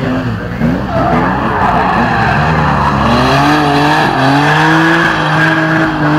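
Drift car sliding sideways: its engine revving hard, the pitch rising and falling again and again as the throttle is worked, over a steady screech of tyres spinning and sliding on the tarmac.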